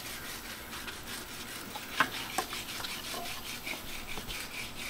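Clutch disc and pressure plate being shifted by hand against the flywheel to line the clutch up by eye: metal parts rubbing and scraping, with a couple of sharp clicks about two seconds in and a run of light, quick ticks near the end.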